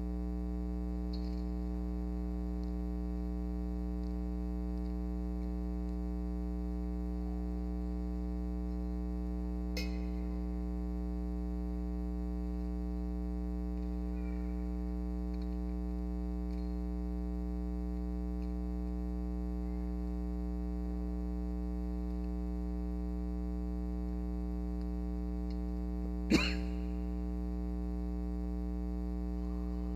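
Steady electrical mains hum, unchanging throughout. A sharp click about 26 seconds in, and a fainter one near 10 seconds.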